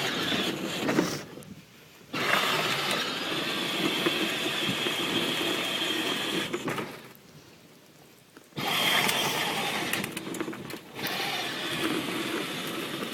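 Motor and gearbox of a kids' electric ride-on toy Escalade running as its pedal is pressed, in three runs: it cuts out about a second in, starts again about two seconds in, stops near seven seconds and picks up again near nine seconds.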